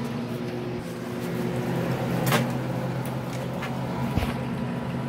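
Microwave oven door unlatching with a sharp click and swinging open, followed by a few lighter knocks, over a steady electrical hum.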